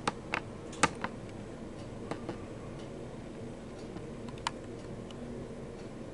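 A few sharp clicks and taps, three in the first second, two more at about two seconds and one about four and a half seconds in, over a steady low room hum.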